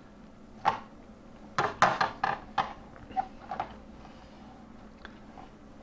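Light clicks and taps of a rubber wiper blade refill and its thin metal spring strips being handled and slotted together on a metal worktop, with a quick cluster of them about one and a half to two and a half seconds in and a few scattered ones after.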